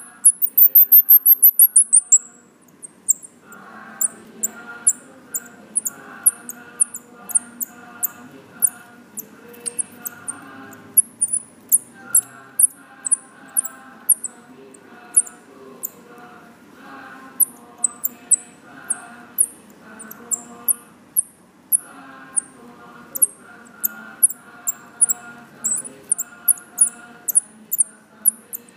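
Baby Himalayan striped squirrels (Tamiops mcclellandii) giving very high, short chirps that drop in pitch, repeated over and over, with a fast run of about ten chirps near the start.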